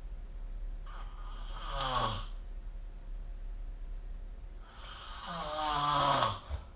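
A person snoring in their sleep: two snores, about four seconds apart, each building in loudness and falling in pitch before it stops.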